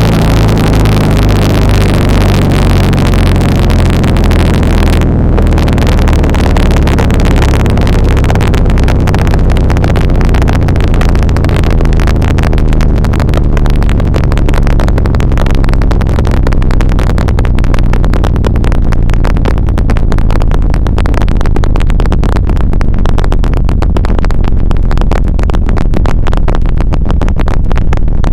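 Emergency alert (EAS) alarm, heavily distorted: a harsh, loud, continuous buzzing noise over low droning tones. The low tones step in pitch near the start.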